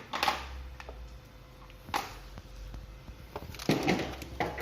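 Packaging being handled: crinkling, rustling and a few light knocks as a new Makita battery is taken out of its box, with the loudest rustles about two seconds in and near the end.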